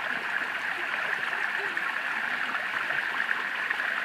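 Running water of a garden fountain and channel: a steady, even rush of flowing water with no breaks.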